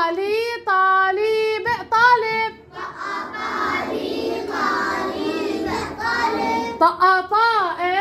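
Children chanting Arabic spelling aloud in a sing-song unison. One clear high voice holds and bends the syllables at the start and again near the end, with many voices chanting together in between.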